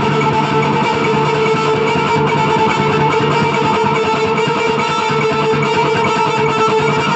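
Electric guitar, an ESP LTD V-200 with passive pickups tuned to D, played through a Marshall Haze 40-watt amp, playing a black metal riff without a break.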